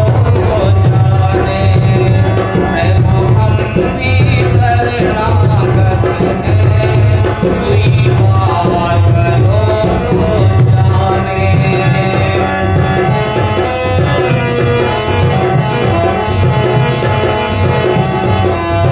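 Devotional bhajan music: a harmonium plays the melody over a steady dholak rhythm, with a man's voice singing in places.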